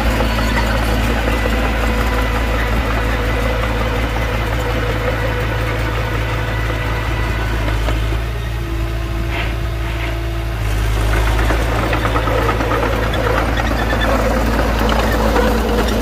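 Heavy construction machine's diesel engine running steadily. It eases off a little about halfway through, then picks up again.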